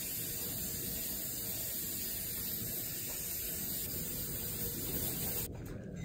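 Aerosol can of starting fluid sprayed into a flat tubeless lawn-tractor tire in one long steady hiss that cuts off suddenly near the end, loading the tire with fuel so it can be lit to pop the bead onto the rim.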